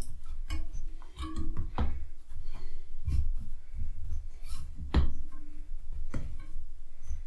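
A bicycle tire being worked onto its wheel rim by hand: rubber scuffing against the rim and irregular clicks and knocks as the wheel is handled, the loudest about two and five seconds in.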